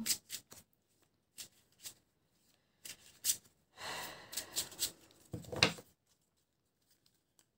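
Tarot cards being handled and shuffled: a scatter of short clicks and papery rustles, falling quiet for about the last second and a half.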